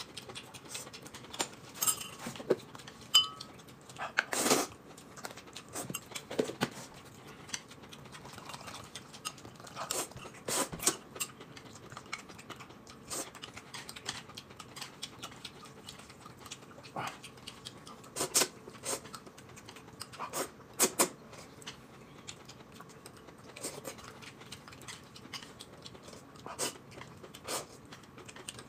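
Eating sounds at a table: noodles being slurped and chewed, with chopsticks clicking against plates and bowls in scattered short sounds.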